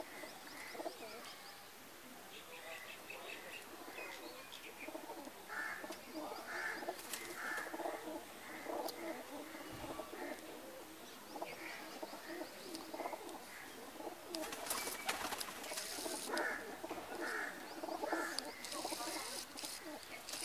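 Domestic pigeons cooing, several birds calling over and over. A few short rustling sounds come in about two-thirds of the way through and again near the end.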